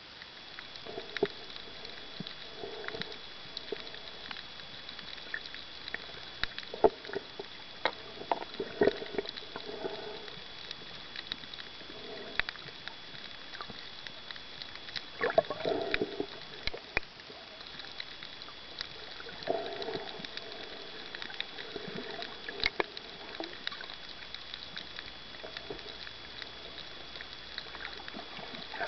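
Muffled underwater water noise picked up by a camera: scattered sharp clicks and crackles over a steady hiss and a faint steady high whine, with swells of water movement every few seconds, the strongest about fifteen seconds in.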